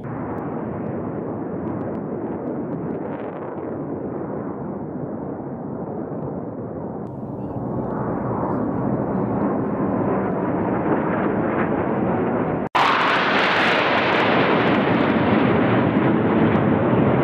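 Jet aircraft flying past in formation: a dense rushing jet-engine noise that grows louder as they approach. About three-quarters of the way through it cuts off for an instant and comes back louder and brighter.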